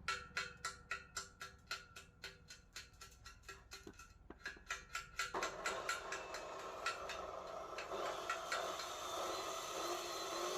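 Chipping hammer tapping on a steel weld at about four strikes a second, knocking off slag to clean the bead. About five seconds in, the tapping gives way to a steady, rough, crackling hiss.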